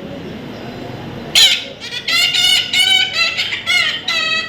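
A parrot calling loudly: a quick series of short, pitched calls, one after another, starting about a second and a half in.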